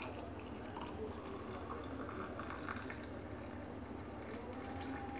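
Tea being poured from an aluminium saucepan through a plastic strainer into a jar: a faint, steady trickle of liquid.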